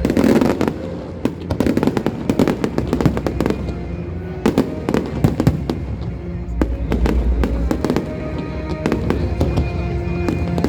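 An aerial fireworks display: many sharp bangs and crackling bursts, with a low rumble, over music playing throughout.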